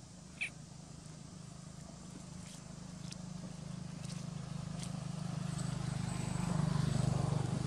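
A motor vehicle's engine hums low and grows steadily louder, as if approaching. There is a short high squeak about half a second in, and a few faint ticks.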